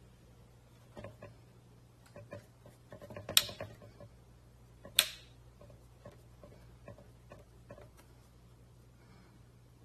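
Scattered light clicks and knocks, with two sharp, loud clicks about three and a half and five seconds in, over a low steady hum.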